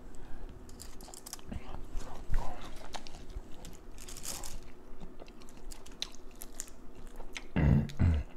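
Dungeness crab shell being cracked and broken apart, with scattered sharp cracks, crunches and a brief crackle about four seconds in. A low pulsing sound starts near the end.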